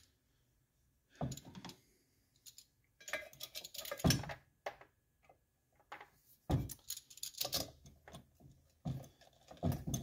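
Metal tools clicking and clinking in about four short spells: a socket wrench with a 3/8-inch socket and extension being fitted onto a nut on an old motor and worked.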